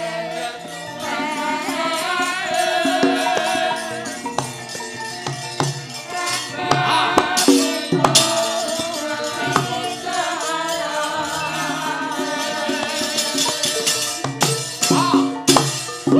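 Javanese gamelan music, broken several times by sharp metallic clatters of the puppeteer's keprak plates.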